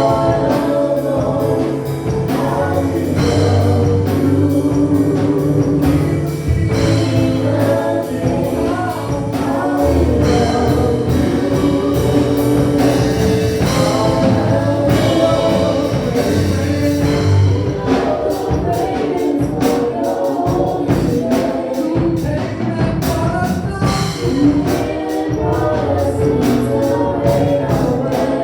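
Church praise team singing gospel worship music with a live band, with bass and a steady percussion beat; the bass drops out about two-thirds of the way through while the beat carries on.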